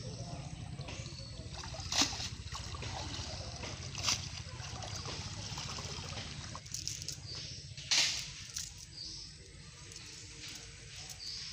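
Water sloshing and splashing as a man wades through a shallow canal hauling in a cast net, over a steady low rumble, with three sharp knocks, the loudest near the end.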